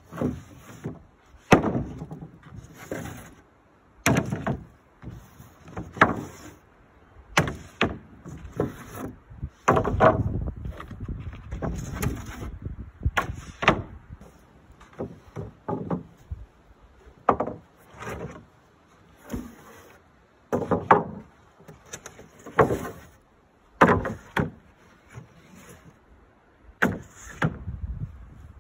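Charred-finish wooden floorboards knocking against one another and onto a timber floor frame as they are set in place, a string of irregular hollow wooden knocks every second or so.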